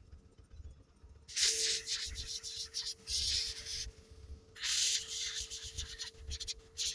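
Gravity-feed airbrush spraying acrylic paint at about 20–30 psi, in several bursts of hiss a second or two long as the trigger is pressed and released.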